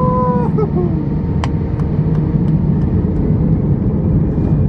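Airbus A320 heard from inside the cabin as it rolls on the ground with its jet engines running: a loud, steady low rumble. A single sharp click sounds about a second and a half in.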